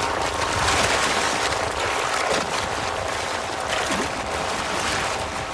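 Heavy splashing and churning of river water as a crocodile lunges among wildebeest stampeding through the shallows, with many sharp splashes throughout.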